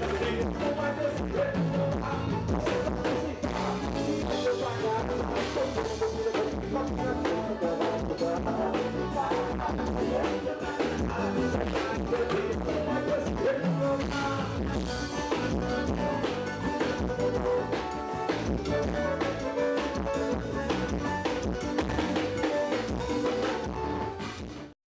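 Live band playing an instrumental passage on accordion, electric guitar and drum kit, with a steady beat. The music fades out abruptly near the end.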